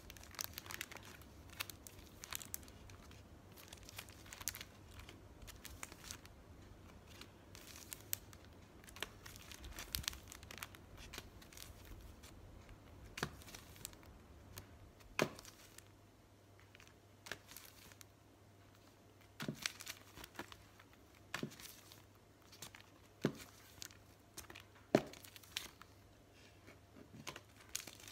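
Thin plastic craft stencils and their packaging being flipped through by hand: irregular crinkling and rustling with scattered sharp plastic snaps and clicks.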